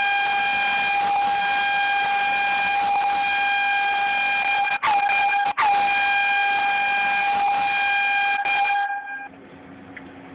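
Air horn blasting long and loud at one steady pitch, with two brief breaks about five seconds in, then stopping about nine seconds in.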